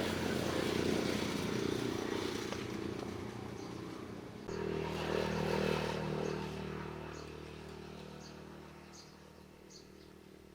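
A motor vehicle's engine running steadily. The sound changes abruptly about halfway, then fades away as the vehicle moves off.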